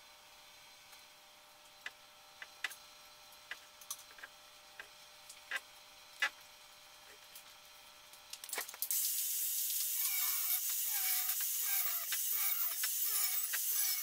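Scattered light clicks and taps of metal pipe being handled, then, about nine seconds in, an angle grinder starts cutting through steel water pipe: a loud, steady, hissing grind with a wavering edge that repeats about twice a second.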